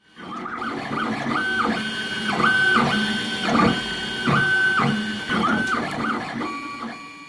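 3D printer stepper motors whining through a run of quick moves: each whine ramps up in pitch, holds a steady tone for about half a second, then drops back, again and again. The sound fades in at the start and fades out near the end.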